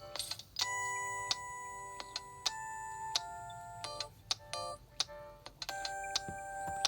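A Nokia Lumia 520 ringtone playing: held chime-like notes that shift in pitch twice, then a fresh held chord near the end, over a regular beat of short ticks.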